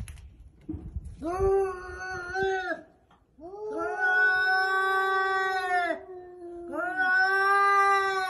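A cat yowling in three long, wavering wails, the middle one the longest: the drawn-out threat call of a cat squaring off against another cat.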